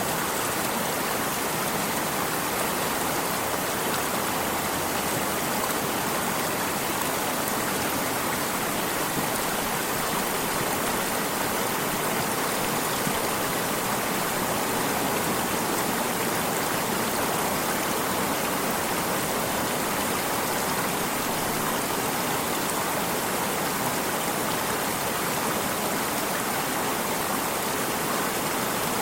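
Flowing stream water, a steady unbroken rush and babble.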